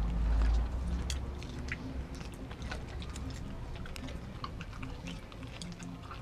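A large dog chewing raw food: irregular wet clicks and smacks of its jaws, with a low rumble in the first second.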